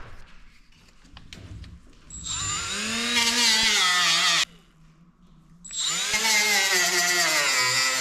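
Power drill boring a hole with a larger bit, in two runs. Each run spins up in pitch; the first lasts about two seconds and stops suddenly, and the second starts almost six seconds in.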